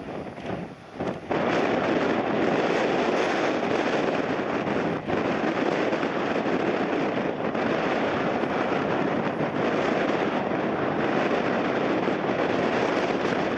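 Jet airliner on landing approach, its engines making a steady loud rush, mixed with strong wind buffeting the microphone. The sound jumps in suddenly about a second in.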